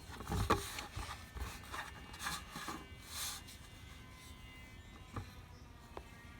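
Kinetic sand being scraped and crumbled: a run of short gritty rasps over the first three seconds or so, then quieter, with a couple of faint clicks near the end.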